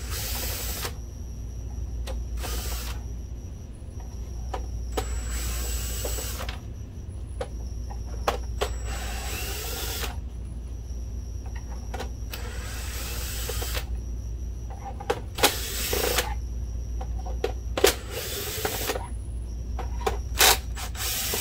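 DeWalt 12-volt cordless drill/driver backing out case screws from a plastic projector housing, running in short bursts of a second or so, several times over, with sharp clicks between the runs.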